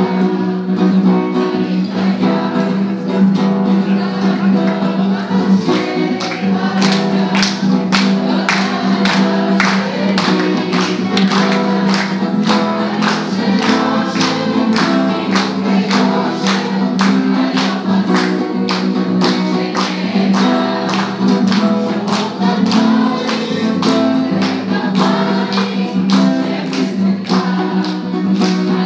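Live group singing of a Hebrew song, voices over strummed acoustic guitar. From about six seconds in, a sharp beat joins in time, about twice a second.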